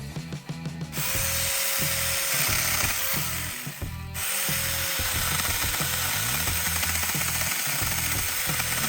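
Saker battery-powered mini chainsaw running with a steady electric whine and chain noise. It starts about a second in, stops briefly around four seconds, then runs on. Background music plays underneath.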